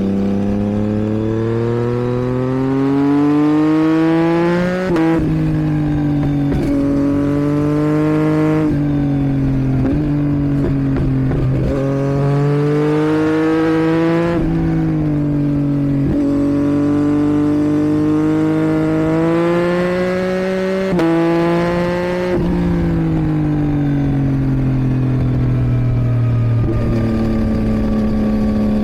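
2022 Yamaha MT-09's 890 cc inline-three engine through a Roadsitalia homologated exhaust with catalytic converter, pulling through the gears. The note climbs in pitch and drops sharply at each upshift, several times. Later it falls away as the throttle is eased and settles to a steady note near the end.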